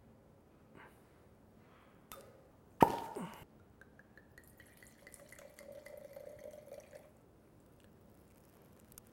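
A corkscrew drawing the cork from a wine bottle: a few light clicks, then one sharp pop a little under three seconds in as the cork pulls free. Red wine is then poured into a wine glass for about three seconds, the glugging rising in pitch as the glass fills.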